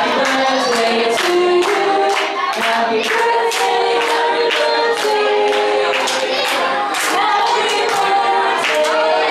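Several women singing together in harmony into microphones, with an acoustic guitar, over a sharp beat about twice a second.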